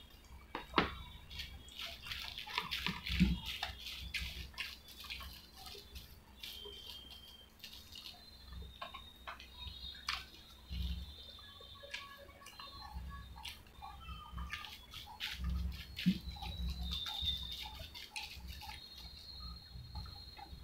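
Close-up chewing and wet mouth sounds of someone eating soft, spongy medu vada (urad dal fritters) with his hand: many small sticky clicks and smacks at irregular intervals, with occasional soft thuds.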